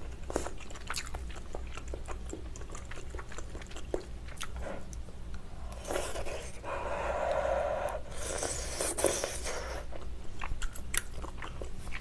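Close-miked eating of malatang: biting and chewing with wet mouth sounds and many small clicks, including wooden chopsticks against the metal pot, with a couple of longer, airier sounds around the middle.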